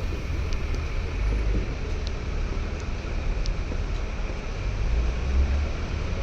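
Steady low rumbling background noise with hiss, and a few faint clicks.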